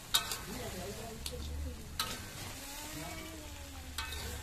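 A metal spatula scraping and knocking against a steel wok as chunks of meat are stirred and fried in soy sauce, with a few sharp clinks and a light sizzle between strokes.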